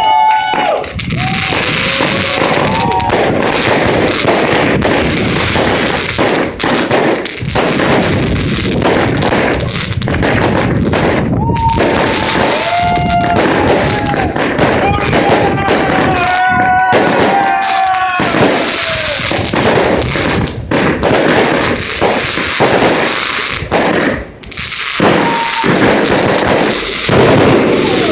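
A fireworks cake of about 150 shots firing a rapid, continuous run of salvos, with a short lull about 24 seconds in. People's voices call out over it.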